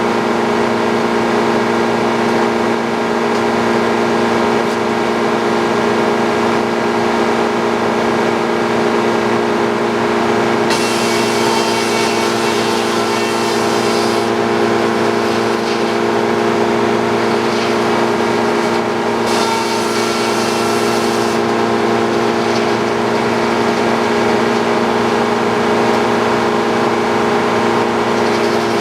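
Frick OO circular sawmill running steadily with a constant machine hum. Two stretches of brighter hissing noise rise over it, one about eleven seconds in lasting some three seconds and a shorter one about twenty seconds in.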